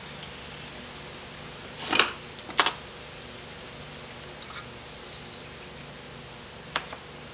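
A few sharp taps and clicks, two about two seconds in and one near the end, from small parts being handled while an automatic transmission valve body is taken apart, over a steady low hum.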